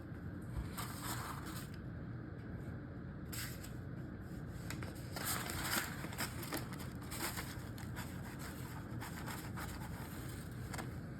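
Intermittent scraping and rustling from handling at the counter: a handful of short bursts over a steady low background hum.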